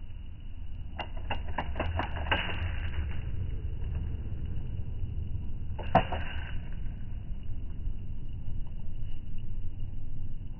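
Daisy Red Ryder BB gun: a quick run of clicks about a second in as it is handled and cocked, then a single sharp shot about six seconds in, over a low steady rumble.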